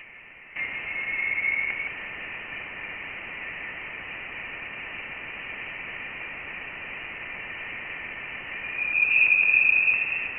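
Voyager 1 plasma wave instrument data played as sound: a steady hiss with a thin whistling tone that swells about a second in and again, louder and a little higher, near the end. The tone is the vibration of dense interstellar plasma (ionized gas) picked up by the spacecraft.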